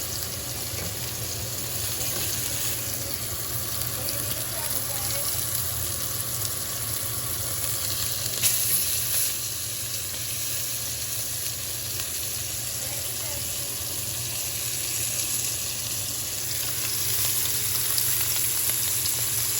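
Filet mignon searing in a hot pan, a steady sizzle from its second side after the flip, with one brief louder sound about eight seconds in.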